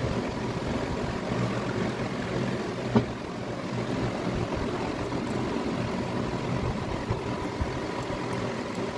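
Steady mechanical hum of a running motor over a noisy background, with a single sharp click about three seconds in.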